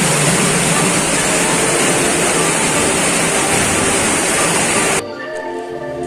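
Loud, steady water running through a flooded tunnel. About five seconds in it cuts off suddenly to quieter marimba background music.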